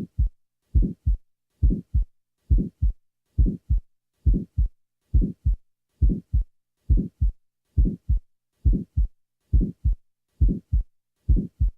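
Heart sounds with an early systolic murmur, about 70 beats a minute: each beat is a longer first sound, the murmur starting with S1 and dying away by mid-systole, followed by a short second sound. This murmur is characteristic of a small ventricular septal defect in the muscular part of the septum, which seals shut as the ventricle empties.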